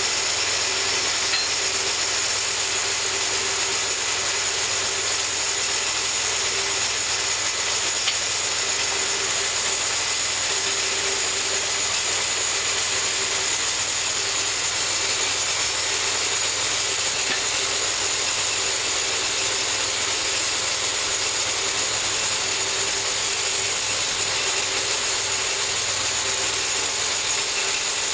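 Homemade bandsaw mill running steadily, its motor and blade sawing through a cherry log, with a constant hiss and hum.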